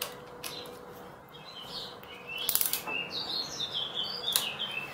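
A few metallic clicks of a small wrench against a car battery's terminal clamp as the clamp is refitted to the post. Small birds chirp in the background from about halfway in.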